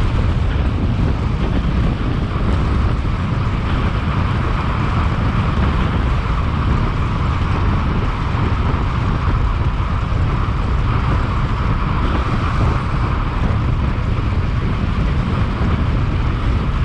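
Steady wind noise on the microphone: a constant low rumble with a hiss above it.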